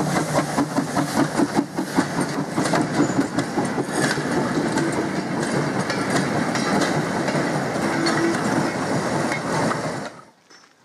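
A goods train's four-wheeled wagons rolling past close by, their wheels clattering rhythmically over the rail joints. The sound cuts off sharply about ten seconds in.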